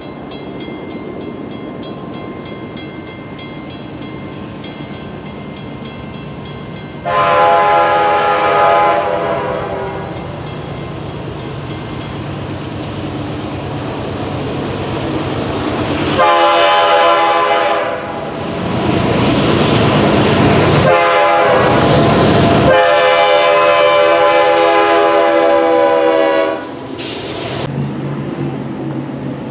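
Diesel freight locomotive's multi-chime air horn sounding a series of blasts as the train approaches, the last held about four seconds, over a steady rumble of the train. The horn stops abruptly near the end, leaving a quieter rumble.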